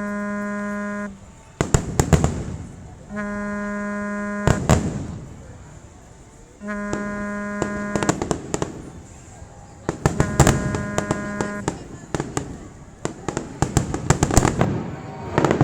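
Fireworks going off in repeated sharp bangs and crackles, with a dense burst of crackling near the end. Between them, show music plays four long held notes.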